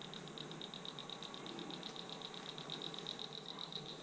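A small animal's rapid, even clicking call, high-pitched, about seven clicks a second and held steady; a listener on the spot takes it for a frog.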